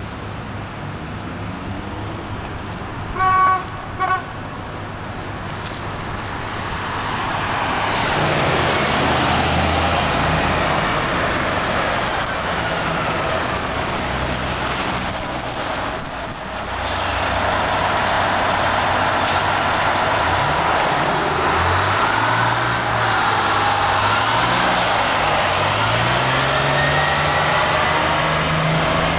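Two short horn toots about three seconds in. Then GM New Look city buses pass close by with their diesel engines running loud in traffic, and near the end an engine note rises and falls as a bus accelerates.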